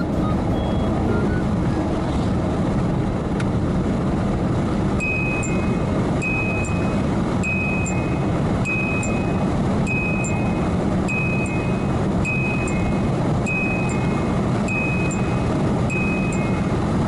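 A car's speed-warning 'kin-kon' chime ringing over steady road and engine noise in the cabin, starting about five seconds in and repeating a two-note ding-dong about once every 1.2 seconds. It signals that the car is over the chime's speed threshold.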